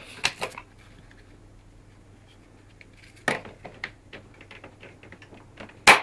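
Hard plastic clicks and knocks of vacuum cleaner accessory tools being pulled off their clips and handled. A few clicks come just after the start, another about halfway, and a sharp, loud clack near the end.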